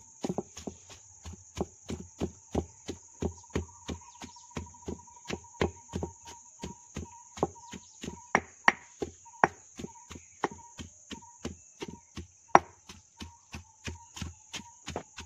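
Stone pestle pounding Ceylon olives in a stone mortar: steady thuds about three a second, with a few sharper, louder knocks as the fruit cracks.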